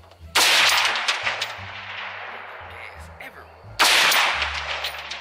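Two rifle shots from a scoped AR-style rifle fired off a bipod, about three and a half seconds apart. Each is a sharp crack followed by a long, fading echo.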